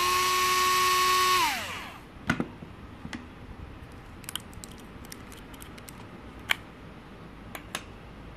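Small electric screwdriver spinning up, running steadily for about a second and a half, then winding down, as it backs out the screw holding the laptop's Wi-Fi card. After that come a series of light clicks as the card is handled.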